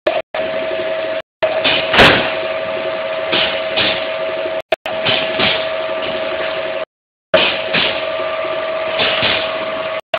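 Production-line machinery running with a steady hum and a fixed tone, with a sharp knock about two seconds in and several softer clatters later. The sound cuts out abruptly to silence a few times.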